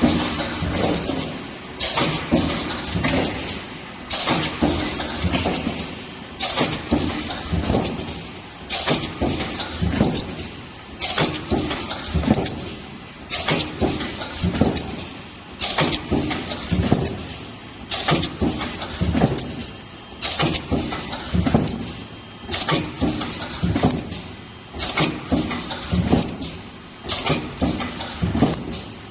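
Two-head projection welding machine for spin-on filter plates and caps running its automatic cycle. A burst of sharp mechanical noise comes about every two and a quarter seconds, with machine noise between the bursts.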